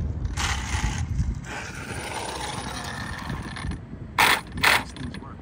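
Arrma Limitless RC car, its brushless electric motor run by a Hobbywing Max4 ESC, driving on asphalt close by. There is a rush of tyre and drivetrain noise about half a second in, then a steadier mechanical running sound with a faint whine, and three short, loud, sharp bursts near the end.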